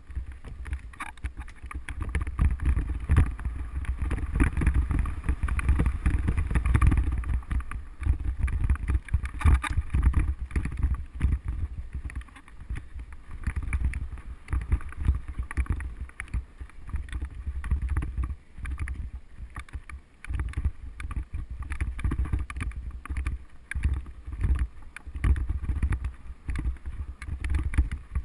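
Mountain bike riding along a dirt forest trail, heard from a GoPro on the rider: wind rumbling on the microphone over tyre noise, with the bike's rattles and knocks over the bumps. The rumble is strongest in the first third, eases off in the middle and picks up again near the end.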